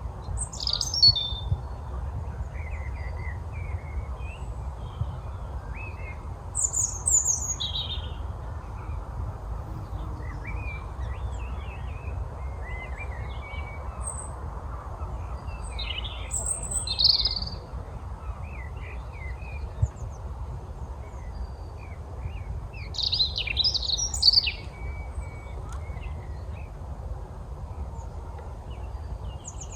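Several wild songbirds calling and singing, with short chirps throughout and louder bursts of song about a second in, around 7 and 17 seconds, and near 24 seconds, over a steady low rumble.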